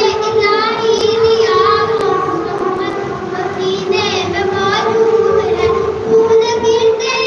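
A boy singing solo through a microphone and loudspeaker, a melodic devotional chant with long, wavering notes.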